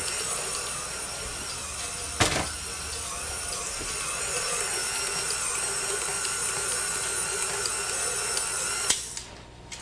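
KitchenAid Ultra Power stand mixer's motor running steadily as it works a stiff salt-crust dough of flour, salt and water. There is a single knock about two seconds in, and the mixer is switched off near the end.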